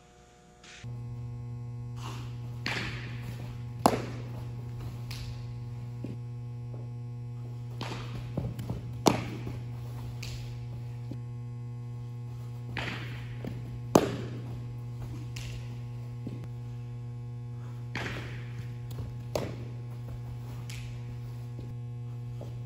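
Steady electrical mains hum, starting about a second in, with a sharp pop of a baseball striking a leather glove or the turf roughly every five seconds and softer knocks in between as an infielder fields balls.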